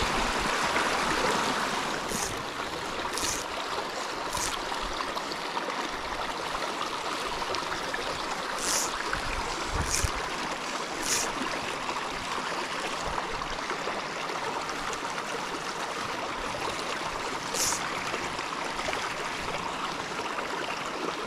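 Small rocky mountain creek running steadily over stones and riffles. Short high swishes cut through it in two runs of three, about a second apart, and once more near the end.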